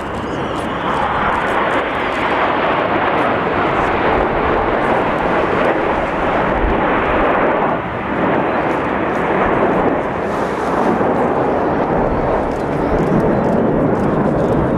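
Nine BAE Hawk T1 jets flying in close formation make a loud, steady jet roar, with a brief dip about eight seconds in.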